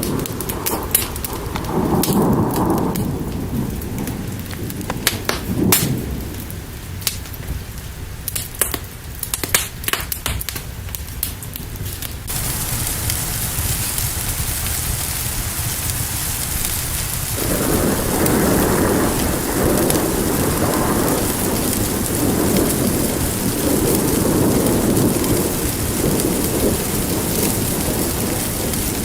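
Fire crackling with sharp snaps over a low rumble, then about twelve seconds in the sound switches abruptly to steady rain hiss. Rolling thunder rumbles in a few seconds later and carries on under the rain.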